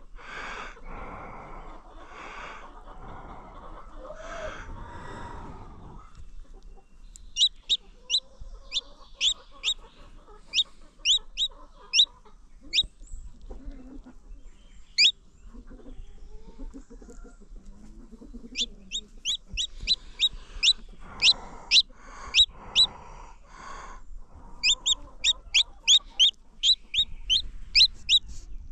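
Baby chicks peeping: short, high, falling peeps in quick runs of several a second, starting a few seconds in and running on in bursts. Lower clucking sounds come at the start and again in the latter half.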